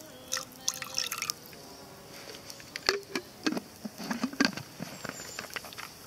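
Water poured from a bottle into a frying pan over a campfire, splashing and dripping in a run of short spurts.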